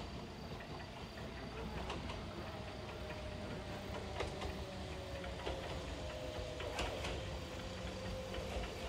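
Kintetsu limited express train approaching from a distance, its running noise slowly growing louder, with scattered sharp clicks every second or two.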